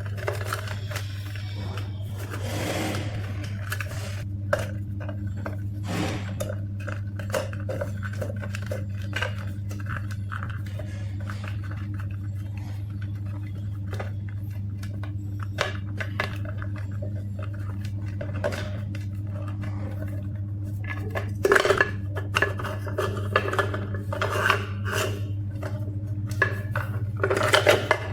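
Small metal parts and tools clinking, clicking and scraping while an e-bike's controller and wiring are being worked on, with louder clatter about 21 seconds in and again near the end, over a steady low hum.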